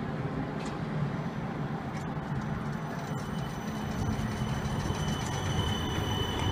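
West Midlands Metro CAF Urbos 3 tram moving off past at low speed, a steady low rumble. About three seconds in, a high, thin steady squeal from the wheels on the curved track comes in and grows louder.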